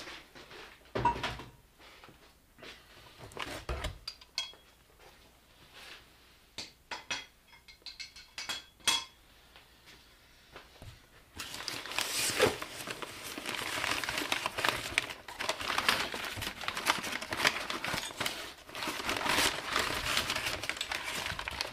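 Scattered knocks and clinks of metal traction-bar brackets being handled in a cardboard box. About halfway through, loud continuous crinkling of brown kraft packing paper starts as a bracket is unwrapped.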